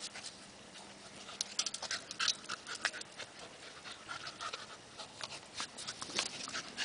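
Beagle panting in quick, short breaths, with a few sharp clicks in the second half.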